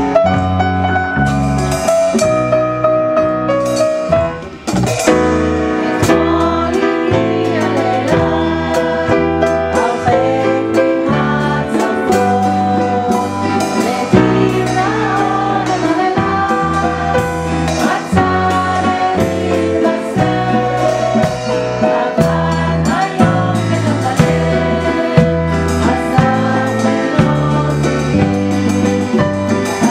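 Live acoustic music: piano and acoustic guitars accompanying voices singing a song, with a brief drop in loudness about four and a half seconds in.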